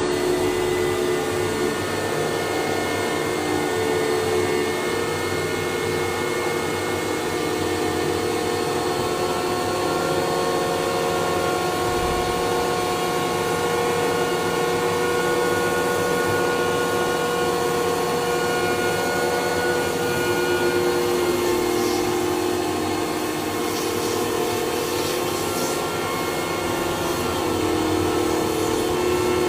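A Roboclean vacuum-type cleaning machine's motor running steadily with a whine, its pitch shifting slightly now and then as it works.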